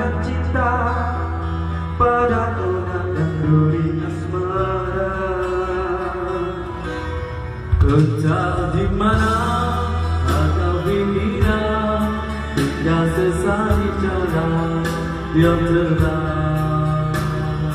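Karaoke song playing loud through the room's speakers: a backing track with a strong bass line and a singing voice.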